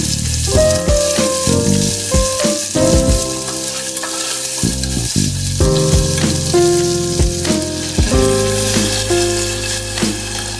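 Food frying in hot oil in a pan, a steady sizzle, with occasional knocks from stirring.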